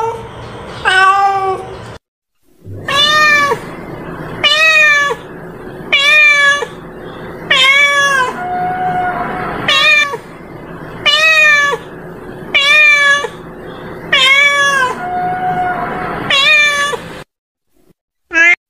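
Domestic cat meowing repeatedly: about a dozen short meows, each sliding up and then dropping, roughly one every second and a half. Two breaks of dead silence fall about two seconds in and near the end.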